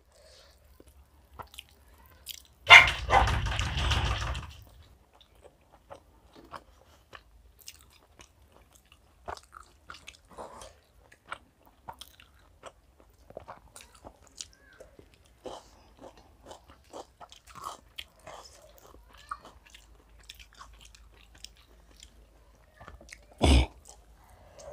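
Close-up eating sounds: chewing, lip smacking and fingers working chicken biryani on plates, heard as many small scattered clicks. A louder rough burst of noise lasts about two seconds around three seconds in, and a short thump comes near the end.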